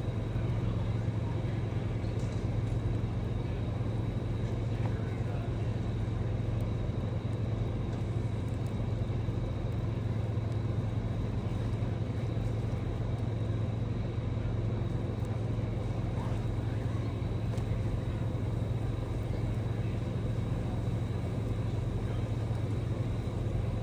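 Steady low mechanical hum, like an engine or motor running at constant speed, unchanging throughout.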